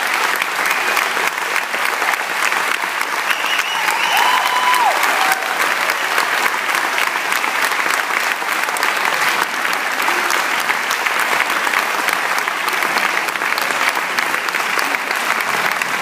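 Concert audience applauding, many hands clapping in a steady, dense ovation.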